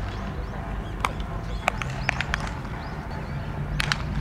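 Baseballs smacking into leather gloves during a game of catch: a series of sharp, irregular pops, one about a second in, several close together around two seconds in, and another pair near the end.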